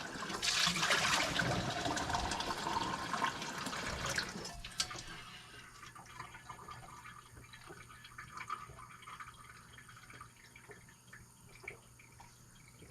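Cold well water running from a tap, shut off about four and a half seconds in; faint small knocks follow.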